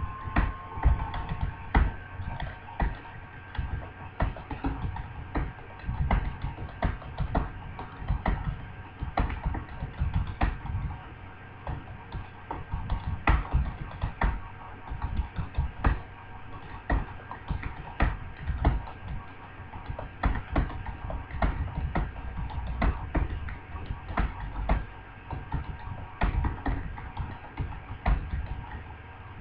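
Computer keyboard being typed on continuously at a brisk pace, about 46 words a minute: irregular key clicks, several a second, each with a low thump.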